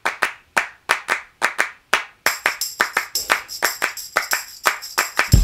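The intro of a music track: hand claps in a steady repeating pattern, joined about two seconds in by a jingling tambourine, with drums and bass coming in at the very end.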